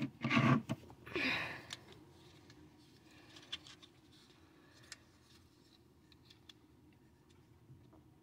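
Fingers handling a small decorative wooden quartz clock: two louder bursts of rubbing in the first two seconds, then faint scattered clicks and scratches as the thin wooden case and back panel are touched.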